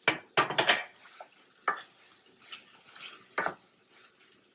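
Wooden spoon knocking and scraping against a stainless steel sauté pan while sliced vegetables are stirred: a quick run of knocks in the first second, then single knocks about a second and a half apart, with soft scraping in between.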